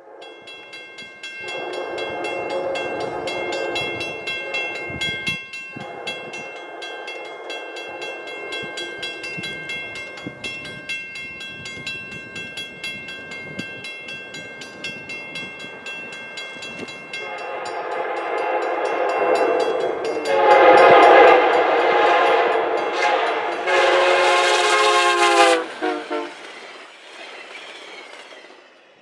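Via Rail EMD F40PH locomotive's multi-note air horn sounding in repeated long blasts as the passenger train approaches, growing louder; the last blast drops in pitch as the locomotive passes, about 25 seconds in, leaving the rush of the passing train.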